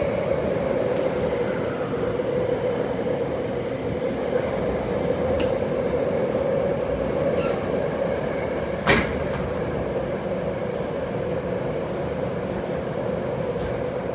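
Tokyo Metro Hanzomon Line subway train running through a tunnel, heard from inside the passenger car: a steady rumble of wheels and running gear with a hum, and a single sharp knock about nine seconds in.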